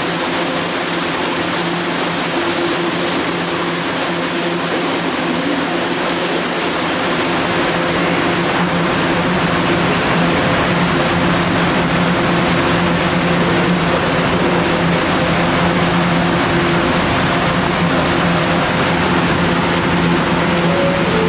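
Kawasaki R211A subway train standing at the platform: a steady hiss and low hum from its onboard equipment, growing slightly louder partway through.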